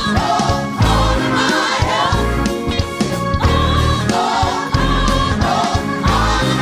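Gospel choir singing with a full band behind it, with a strong pulsing bass and drums.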